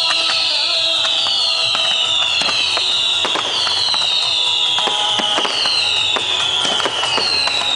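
Fireworks display: a run of overlapping falling whistles, about one a second, over sharp bangs and crackling pops from the bursting shells.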